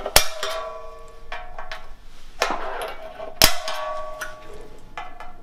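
A centre punch struck into a metal bumper support bar to mark hole centres for a hole saw. There are two sharp metallic strikes about three seconds apart, each followed by a brief ring from the bar, with a few lighter taps in between.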